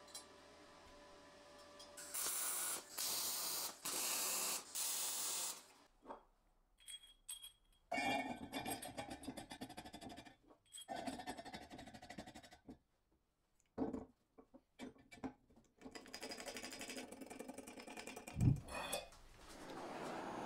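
Metalworking handling sounds on a steel workbench. About two seconds in come four rasping strokes of about a second each, followed by scattered metal clinks and knocks and a sharper knock near the end.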